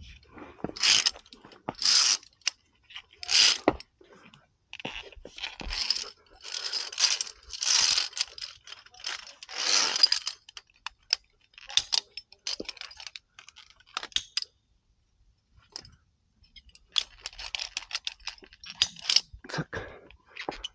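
Via ferrata climbing noises close to the microphone: irregular scraping and rustling bursts with sharp clicks, from the climber's hands, clothing and clipped gear working on rock, steel cable and ladder rungs. There is a short lull about three quarters of the way through.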